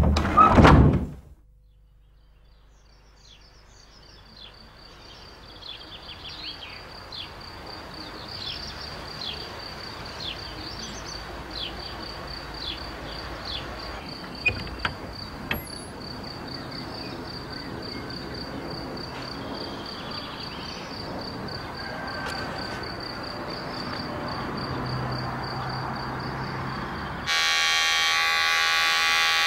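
A short loud noise in the first second. Then a steady high insect trill with a few short chirps and clicks over quiet outdoor ambience. Near the end an electric shaver starts up abruptly and buzzes steadily.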